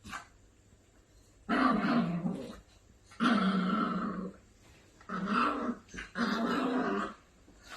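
Maltipoo puppy growling in three long, rough growls of about a second each, starting after a short quiet, the last one broken briefly in the middle.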